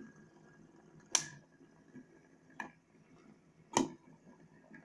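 QiYi 1x3x3 fidget spinner puzzles spinning with a faint steady whir. Three sharp plastic clicks come about a second and a half apart as fingers flick the spinners to keep them going.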